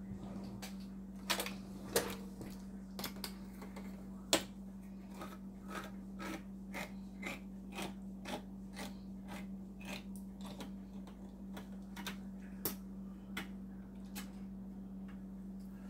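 Skillet of pork chops cooking in sauce, with small pops and crackles coming irregularly, one to three a second, over a steady low hum.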